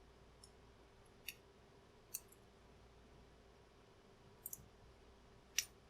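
A few faint, sharp clicks, one of them a quick double, from a disassembled Klein Tools padlock's core being carefully worked free with a plug follower; otherwise near silence.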